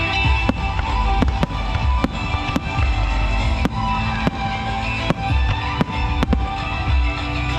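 Aerial fireworks going off in a quick string of sharp bangs and cracks, about two or three a second, with music playing throughout underneath.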